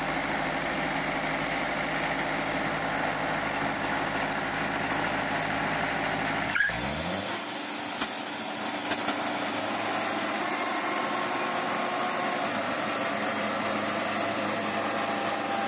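Wood-Mizer Super Hydraulic portable bandsaw mill's engine running steadily. About six and a half seconds in the sound shifts: a brief rising pitch, then the low hum falls away and a higher hiss takes over, with a few sharp clicks a little after.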